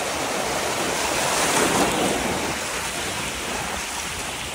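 Floodwater splashing and rushing: a steady wash of noise that swells about a second and a half in, then eases off.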